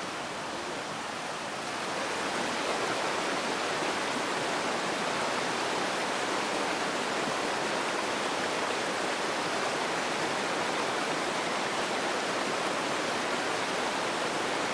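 Shallow, fast river rushing over a stony bed: a steady roar of running water, a little louder from about two seconds in.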